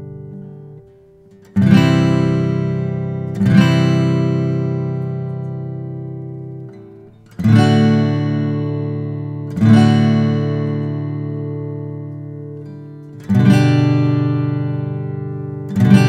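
Gibson J-200M mini-jumbo acoustic guitar with quilted maple back and sides, strummed in slow, full chords: six strums, each left to ring out and fade before the next, with a strong bass.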